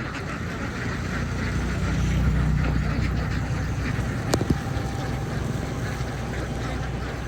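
A low engine rumble that swells about two seconds in and then eases off, over a flock of ducks quacking; a single sharp click a little past the middle.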